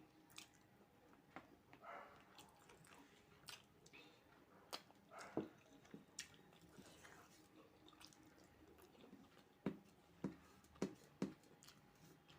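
Faint mouth sounds of someone eating fried rice and chicken curry: chewing with scattered soft clicks and smacks, a few of them bunched near the end.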